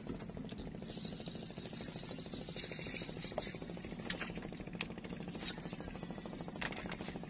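A small engine running steadily, its rapid even pulsing heard throughout, with a few faint clicks over it.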